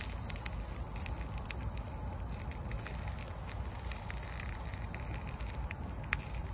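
Firewood burning in a small titanium wood stove, crackling with scattered sharp pops over a steady low background noise.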